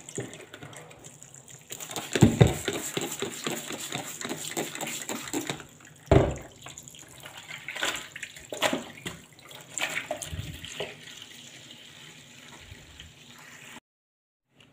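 Tap water running into a stainless steel sink while a dish cloth is rinsed and squeezed under the stream, with irregular splashing and sloshing. There are two louder wet splashes, about two seconds and six seconds in, and the sound cuts off suddenly shortly before the end.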